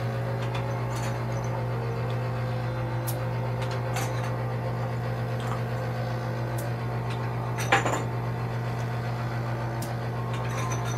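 A steady low hum, with a few faint clicks and one sharper knock nearly eight seconds in, as plastic vacuum cupping cups are handled and set on the back.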